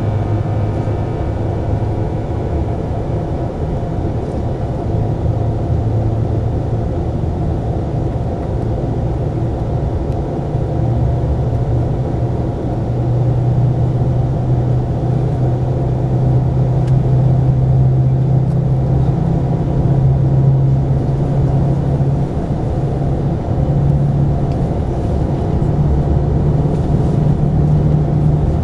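Cabin noise of an L0 series superconducting maglev accelerating from about 165 to 240 km/h while running levitated: a steady rumble with a low hum that rises slowly in pitch and grows a little louder about halfway through.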